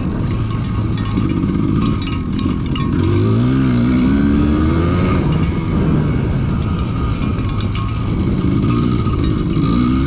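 Dirt bike engine running hard under throttle, its pitch climbing as it accelerates about three seconds in and again near the end. A few sharp clicks come about two seconds in.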